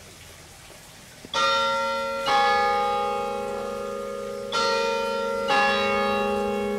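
Church bells ringing: after a moment's hush, four strokes come in two pairs, each pair about a second apart. Every stroke rings on and slowly fades beneath the next.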